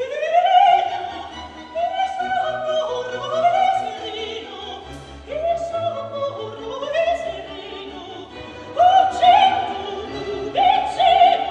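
A soprano sings opera with wide vibrato, accompanied by an orchestra. She sings short phrases that swoop up into high held notes, again and again.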